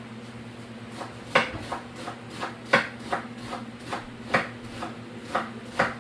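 Irregular knocks and taps of kitchen utensils or food being handled on a hard surface, about a dozen over a few seconds, over a steady low hum.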